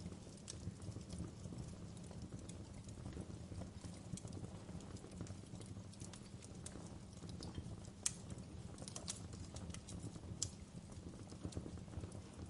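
Wood fire crackling in a fireplace: a steady low rumble of flames with scattered sharp pops and snaps of burning logs, a few louder pops about eight, nine and ten seconds in.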